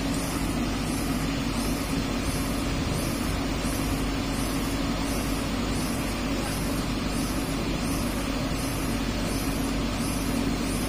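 Diesel engine of a Komatsu PC200-8 excavator running steadily at a constant speed. A faint high-pitched pulse repeats about one and a half times a second over the engine.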